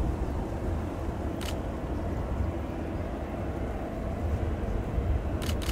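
Boeing 747-400's four jet engines running at low taxi power, a steady low rumble. Two short clicks are heard, one about a second and a half in and another near the end.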